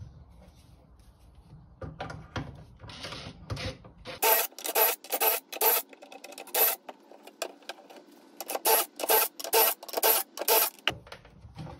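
Cordless drill boring shelf-pin holes into a wooden cabinet side through a shelf-pin jig: a quick run of short drilling bursts, one per hole. The bursts are faint at first and loud from about four seconds in, stopping shortly before the end.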